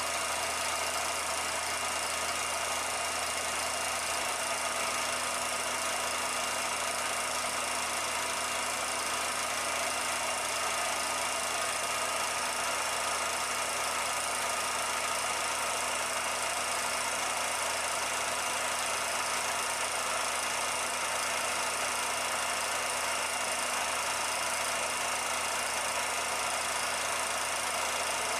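A steady, unchanging machine-like hum over an even hiss, with no distinct events.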